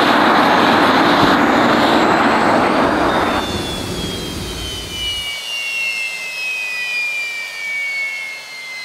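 Aero L-39 Albatros jet engine, an Ivchenko AI-25TL turbofan, running with a loud rush of noise that drops off about three and a half seconds in. What is left is a high turbine whine sliding steadily down in pitch as the engine spins down.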